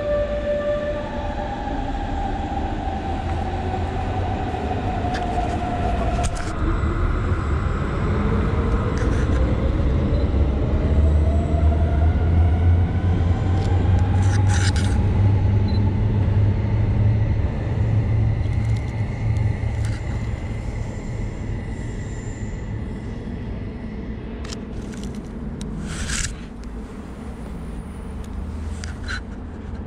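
Electric train moving in a station hall: a low rumble that swells to its loudest mid-way and then fades. Its motor whine glides down at first, then several tones rise together. A few sharp clicks come in the second half.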